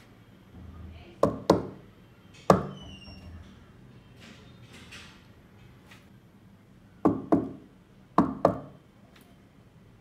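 Knocks on a tabletop in two set rhythms: three knocks (two quick, then one after a pause), then four knocks in two quick pairs. They are stored trigger patterns for an accelerometer knock sensor.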